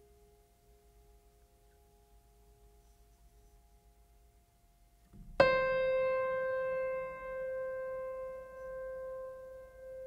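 Background music. A faint held tone fades out over the first half. Then, about halfway, a single piano note is struck and rings out, slowly decaying.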